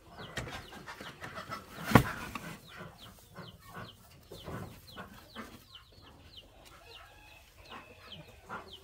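Chickens clucking and peeping, with many short high falling calls. A sharp knock comes about two seconds in, with scattered lighter clicks.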